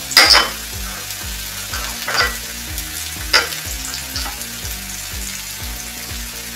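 Chopped onion sizzling steadily in hot vegetable oil in a frying pan, freshly added to the heated oil. There are three sharp clinks, near the start, about two seconds in and about three and a half seconds in.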